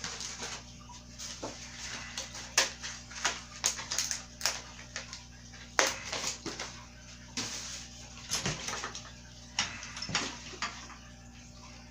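Irregular clicks, taps and rustles of toddler-bike parts and their packaging being handled, over a steady low hum.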